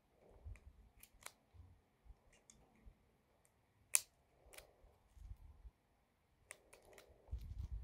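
.22 LR cartridges being thumbed one by one into a CMMG .22 conversion magazine: a scattering of small, sharp clicks at irregular intervals, the loudest about four seconds in.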